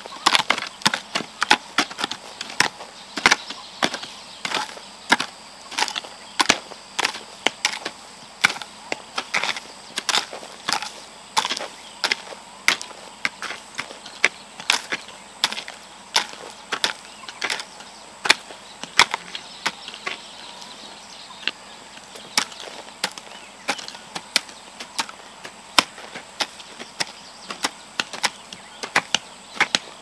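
Hand hoes chopping into soil and weeds: a steady run of sharp, overlapping strikes, about two a second, from two people weeding side by side.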